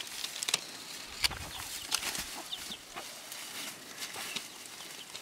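Chickens clucking and chirping, with sharp crackles of dry grass and straw being scraped up by hand.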